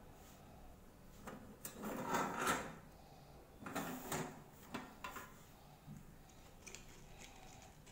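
Copper plates bound on metal rings being turned over by hand: a few scraping, rubbing bursts as the plates slide on the rings, the loudest about two seconds in, then light clicks near the end.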